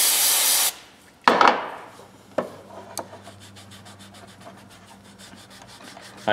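An aerosol can of carburetor cleaner spraying in one short, loud hiss, followed by a brief rustle about a second later. A shop rag then rubs the plastic-dipped handle of a pair of oil filter pliers, giving a run of quick faint ticks.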